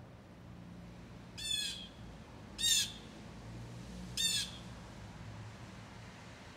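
A jay giving three short, harsh calls spaced a second or more apart: alarm calls at a Cooper's hawk perched nearby.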